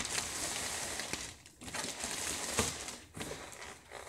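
Plastic packaging being handled while a computer is unpacked: crinkling and rustling in three or four stretches with short pauses between, with a few sharp knocks of packing material.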